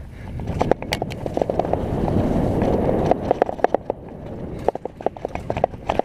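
Mountain bike riding fast over a wet, leaf-covered dirt trail: a rushing rumble of tyres and movement, loudest about two to three seconds in, with frequent sharp clicks and rattles from the bike jolting over roots and bumps.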